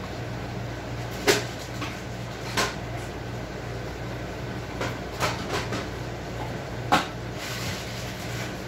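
A handful of sharp knocks and clicks, about six spread over several seconds, the first and last loudest, over a steady low hum.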